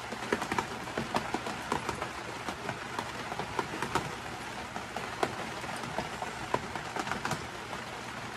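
Steady rain falling on a surface, with scattered irregular drips and ticks.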